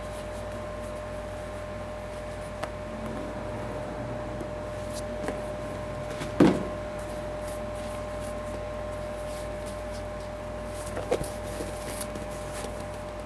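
An Air Jordan 9 sneaker is handled and set down on a cardboard shoebox, with one loud knock about six and a half seconds in. A few small clicks and rustles follow near the end, over a steady background hum with a faint tone.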